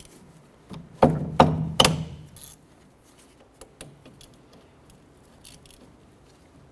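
Socket wrench working the brake caliper bolts: three loud metallic knocks in quick succession about a second in, then scattered light clicks.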